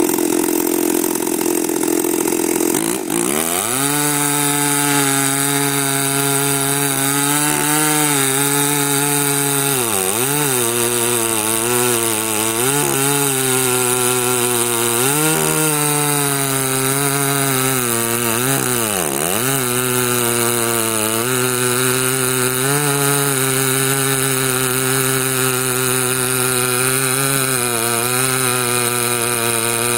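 Stihl 084 two-stroke chainsaw with a 52-inch bar running at full throttle while cutting through a large log. Its engine note sags under load and picks back up several times. There is a short break about three seconds in.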